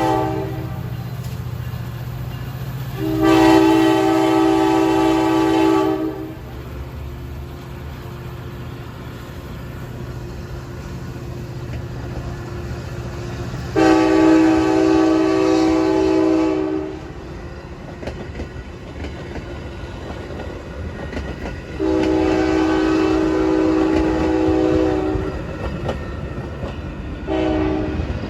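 Metra commuter locomotive's air horn sounding a chord in three long blasts of about three seconds each, several seconds apart, then a short blast near the end, over the steady low rumble of the diesel engine.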